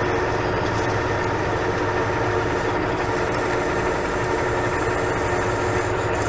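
Metal lathe running steadily while a 5/8-inch twist drill is fed into the end of the spinning bar: a continuous machine hum with several steady tones, unbroken throughout.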